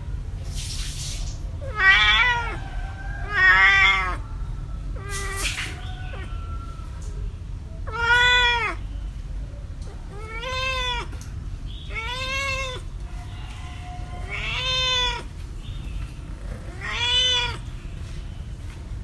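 Cat meowing repeatedly, about eight meows roughly two seconds apart, each rising and then falling in pitch. Two short bursts of noise come between the first calls, over a steady low rumble.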